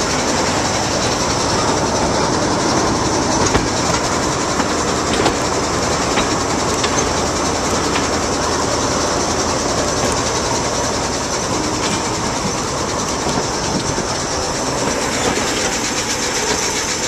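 British Rail Class 03 diesel shunter, with its Gardner eight-cylinder engine, running steadily along the track while in motion. Occasional wheel clicks over rail joints sound through the steady running noise.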